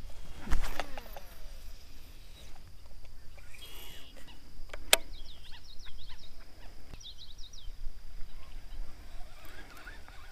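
Small birds chirping, with a cluster of quick, falling chirps about seven seconds in. Just after the start, a short falling whir as the baitcasting reel's spool spins down at the end of a cast, and a couple of sharp clicks later on.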